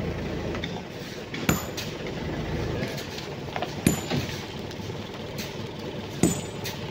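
Sharp knocks of hand tools striking rock, three of them about two and a half seconds apart, over a low steady rumble.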